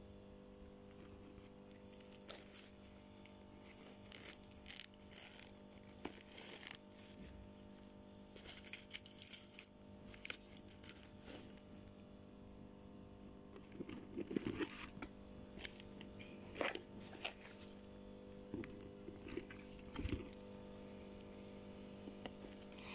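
Hands handling zipped fabric and plastic pouches in a bag: scattered rustles, small clicks and taps, a little louder in the second half, over a steady low hum.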